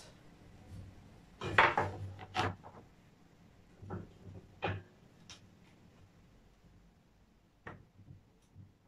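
Metal wire dish rack and its base tray knocking and clattering as they are handled and fitted together: a cluster of loud knocks about one and a half to two and a half seconds in, then a few lighter scattered clicks.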